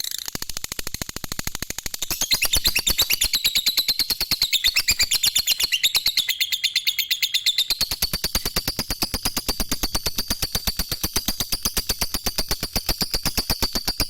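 Lovebird in 'ngekek' song: one long, unbroken rattling trill of rapid, sharp, high-pitched notes.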